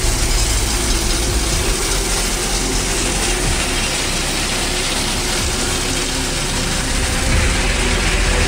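Mobile asphalt hot mix plant running: a loud, steady mechanical din over a low hum, from conveyors, the aggregate screen and the rotating dryer drum working together.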